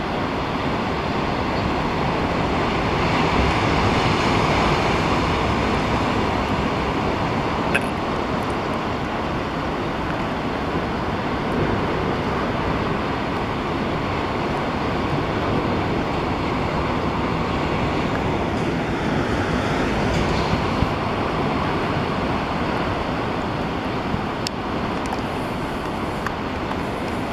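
Steady rushing outdoor noise with a low rumble, swelling slightly a few seconds in.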